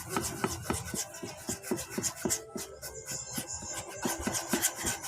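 Rapid rhythmic stirring and scraping, about five strokes a second, of a utensil mixing a thick, sticky mixture of peel-off mask and glue in a container.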